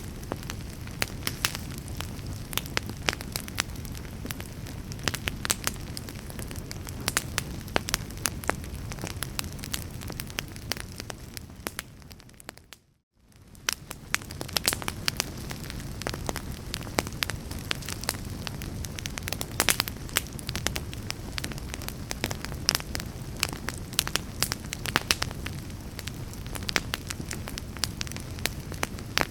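Fire crackling in a fireplace: frequent sharp pops and snaps over a steady low rumble. A little before halfway the sound fades down to near silence and comes straight back.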